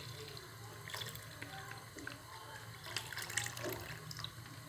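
Milk poured from a plastic pouch into a pan of soaked sago pearls: a faint liquid pour with scattered light clicks.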